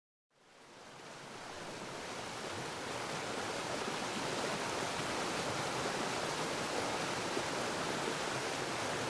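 Steady rush of falling water from a waterfall, fading in over the first couple of seconds.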